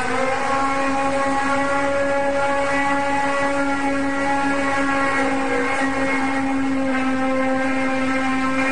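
A loud, steady droning hum with a clear pitch and a ladder of overtones, wavering slightly, over a background rush: one of the so-called 'strange sky sounds', a mysterious horn-like drone of unknown origin.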